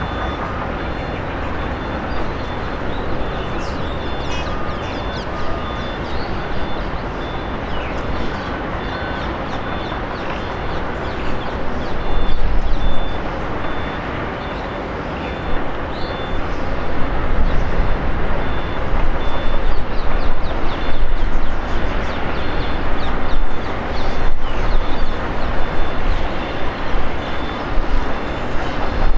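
Distant jet airliner taxiing: a steady low engine rumble over general airport noise, getting louder and more uneven from about twelve seconds in. A faint repeating high beep sounds during the first several seconds.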